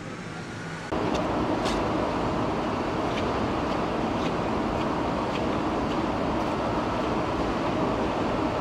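Steady factory-floor background noise, an even hum with a few faint clicks, that comes in abruptly about a second in.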